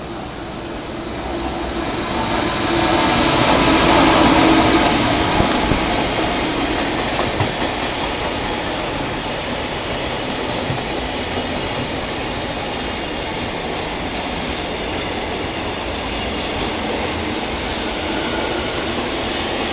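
Train rolling past a station platform, its wheels clicking over rail joints with some squeal. It swells to its loudest about four seconds in, then runs on steadily.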